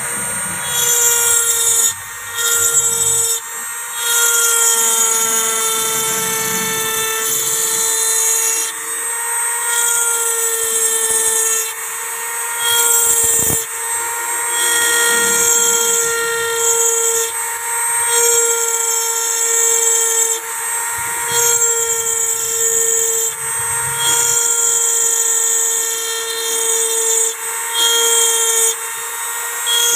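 Handheld mini electric grinder used as an engraving tool, running at high speed with a steady high whine. A harsher grinding hiss rises and falls as the small bit cuts letters into a stone gravestone plaque. There is one brief click midway through.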